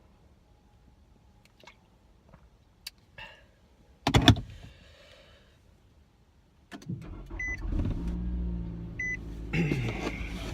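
A car door shuts with a loud thump, and a few seconds later the car's engine starts and runs at idle. A chime beeps twice, about a second and a half apart, as the engine runs.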